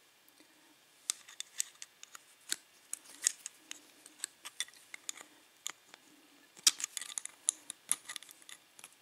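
Irregular small metal clicks and scrapes from a tool working at the retaining clip on a padlock core, trying to pry it off, with a thicker cluster of clicks about seven seconds in.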